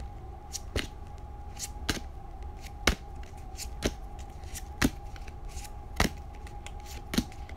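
Pokémon trading cards being flipped through one at a time by hand, each card slid from the front of the stack to the back with a sharp snap, about once a second. A steady faint hum runs underneath.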